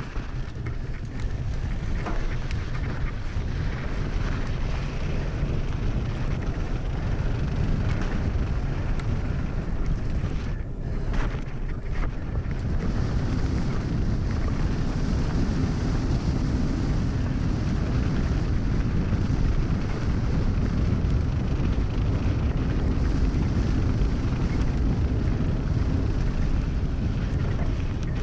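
Wind rushing over a helmet camera's microphone on a fast mountain-bike descent, mixed with the tyres rolling over loose dirt and gravel. It is a steady rumble with a few sharp clicks.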